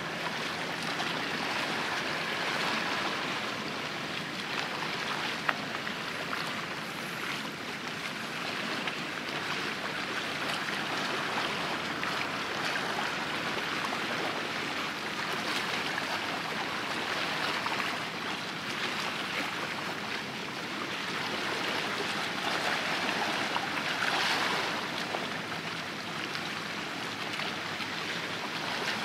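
Steady rush of sea water washing and splashing, swelling and easing every few seconds, with a single sharp click about five seconds in.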